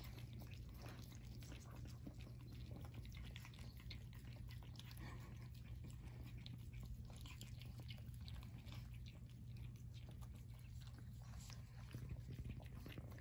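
Two Pomeranians licking and lapping frozen dog ice cream from cups: many faint, quick, irregular wet tongue clicks, over a steady low hum.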